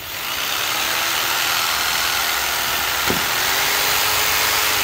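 Toshiba 310 W corded jigsaw switched on and running without load, a loud steady motor whir with the blade rattling, faltering briefly about three seconds in. Its brushes spark while it runs.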